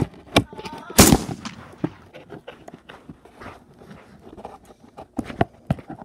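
Scissors cutting packing tape on a cardboard box close to the microphone: a few sharp knocks, a short scratchy rip about a second in, then light clicks and taps of handling.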